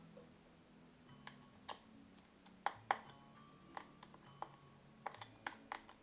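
Faint, irregular small clicks and ticks of a precision screwdriver and its metal bits, handled and set against a screw in the aluminium bottom case of a 2015 15-inch MacBook Pro. A low steady hum sits underneath.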